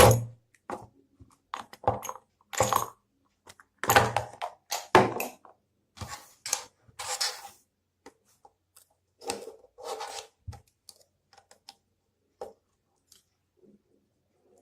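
Irregular clicks, taps and short scraping, rasping noises of hand tools and small plastic parts being handled while taking apart a plastic MP3 player. The noises come thickest in the first ten seconds and grow sparse and faint toward the end.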